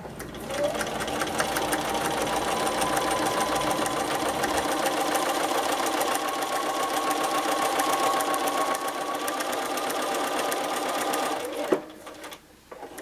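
Bernina electric sewing machine stitching a straight seam close to the fold of a curtain panel: a steady motor whine with rapid needle strokes. It stops with a sharp click near the end, then starts again just before the end.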